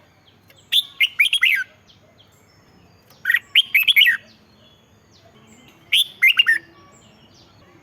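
Red-whiskered bulbul singing: three short song phrases of quick, whistled notes, each about a second long and about two and a half seconds apart.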